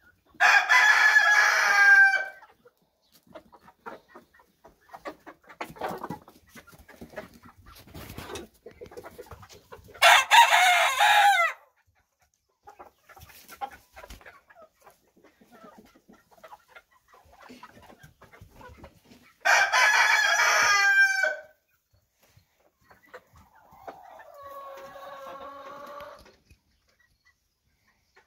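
Rooster crowing three times, about ten seconds apart, each crow lasting nearly two seconds. Between the crows there is faint clucking and scratching from the flock, and a softer, lower call comes near the end.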